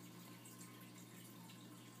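Near silence: room tone with a low steady hum and faint hiss.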